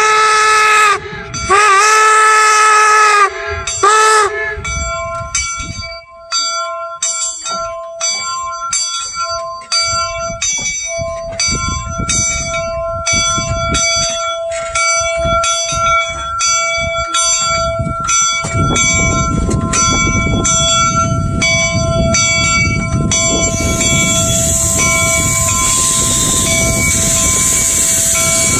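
Union Pacific No. 119 replica 4-4-0 steam locomotive sounding its steam whistle in two long blasts and a short one. It then rings its bell steadily at about two strikes a second. Near the end the engine's rumble and a loud hiss of steam come in.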